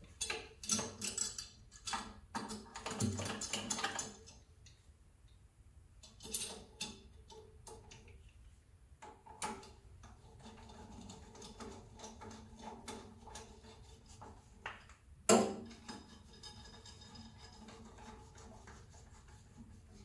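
Screwdriver and screws clicking, ticking and scraping on metal as a new ignition electrode is screwed back onto a gas boiler's burner. The small handling sounds come in clusters, densest at the start, with one sharper knock about fifteen seconds in.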